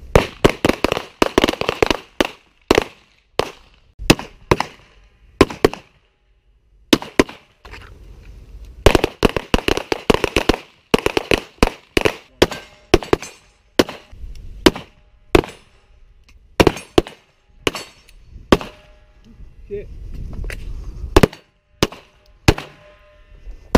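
Handgun fire from several pistols: sharp shots in quick strings, overlapping densely in places, with short pauses between strings.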